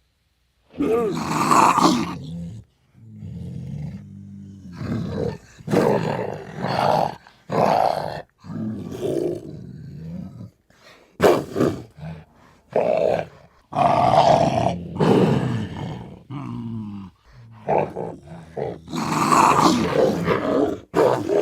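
Leopard growling and snarling: a string of harsh, rough calls with short gaps between them, and a quieter low growl between some of them.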